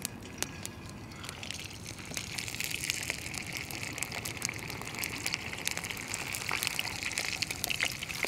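Hot oil sizzling and crackling in a cast-iron skillet as a whole cornstarch-dusted fish is lowered in to deep-fry. The sizzle builds about two seconds in, then carries on steadily with many small pops.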